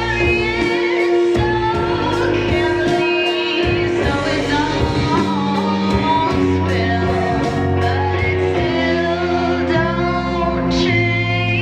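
A song playing: a singing voice, wavering on held notes, over instrumental backing with sustained low bass notes.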